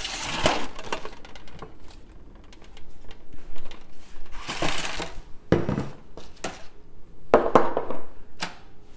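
Kitchen items being gathered and set down on a countertop: a disposable aluminium foil pan rustling and crinkling as it is handled, with several sharp knocks and clinks as the pan and bottles are put down.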